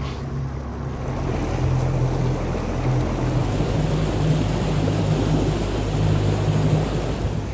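Outboard motor running under way on a fiberglass bass boat: a steady engine hum whose note shifts a little about three seconds in, under the rush of water along the hull and wind on the microphone.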